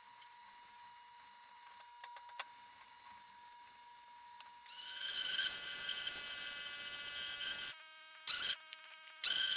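A pressure washer sprays with a loud, steady hiss that starts about halfway through. The spray cuts off twice briefly as the trigger is let go, while the machine keeps humming underneath. Before the spray starts there is only a faint steady tone.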